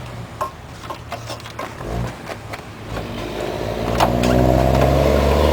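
Sharp plastic clicks and knocks as the headlight wiring and connectors are handled, then a car engine running steadily, growing louder about halfway through and drowning out the clicks.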